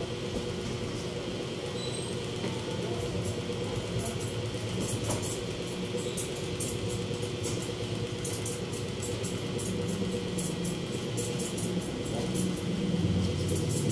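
Barber's scissors cutting hair: quick runs of light snips over a steady room hum, with a low rumble swelling near the end.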